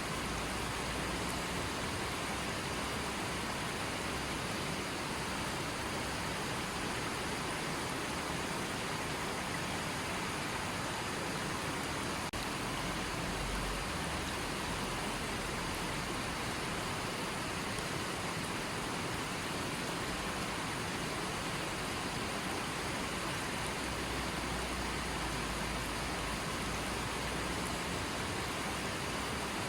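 A creek's water running and splashing in a steady, even rush.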